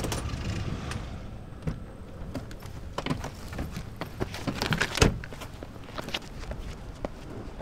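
Irregular knocks and clicks of footsteps and handling at a parked car, the loudest a sharp thunk about five seconds in.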